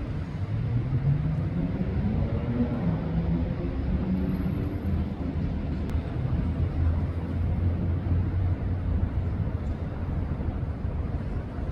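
City road traffic: a motor vehicle's engine rises in pitch as it pulls away over the first few seconds, then settles into a steady low rumble.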